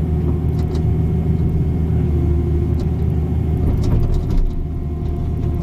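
A 305 mini excavator's engine runs steadily as it digs a shallow trench, with a few light knocks and clicks from the bucket working the soil.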